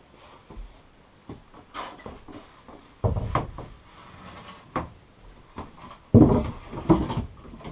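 A new pine board knocking and rubbing against the wooden shelf as it is test-fitted into place. There are two loud thumps about three and six seconds in, with lighter knocks between.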